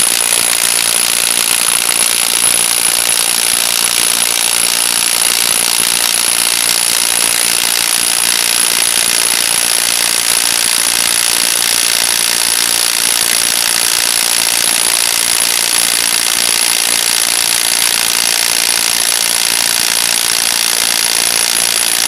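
Milwaukee FIW212 cordless impact wrench hammering continuously at a steady rate, rattling against a nut torqued to about 500 Nm and slowly backing it off.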